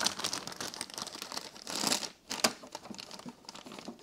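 Clear plastic dust-extractor bag crinkling as it is handled and pushed into the extractor's container, with a sharp crackle about halfway through.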